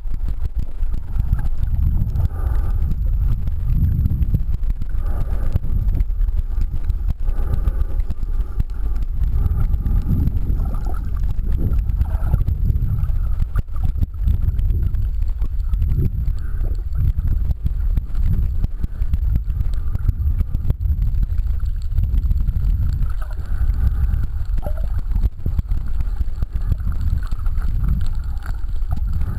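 Muffled low rumble of water moving around an underwater camera housing, swelling and fading every couple of seconds.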